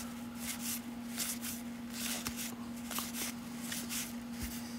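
1992 Topps baseball cards being thumbed off a stack one at a time in the hands, each card sliding off with a soft papery swish, about two to three a second. A steady low hum runs underneath.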